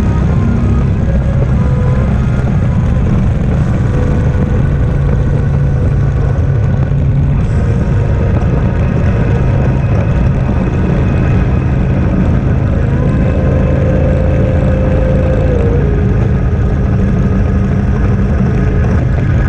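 Steady rush of wind over the microphone of a camera on a moving motorcycle, with the motorcycle engine running at road speed underneath. The engine's pitch dips once about sixteen seconds in.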